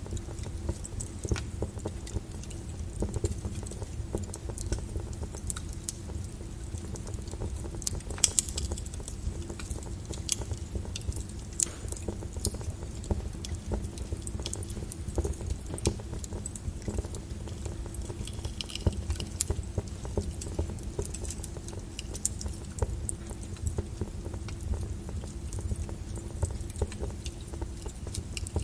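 Wood fire crackling with irregular sharp pops, layered with rain over a steady low rumble. The loudest pop comes about eight seconds in.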